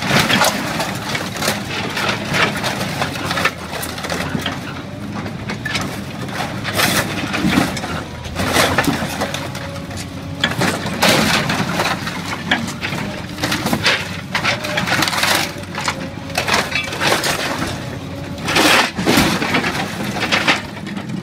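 Steel grapple of a scrap-handling excavator smashing and tearing a truck's cab and chassis: repeated crashes and crunches of crumpling, ripping sheet metal, over the steady drone of the machine's engine.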